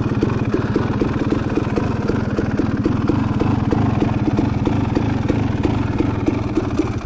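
KTM 300 XC single-cylinder two-stroke dirt bike engine idling with an even, rapid pulse, then dying right at the very end as it stalls.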